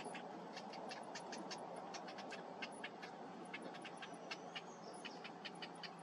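Cinnamon bittern chicks begging at the nest: short, sharp high calls, several a second at an uneven pace, over a steady low background hiss.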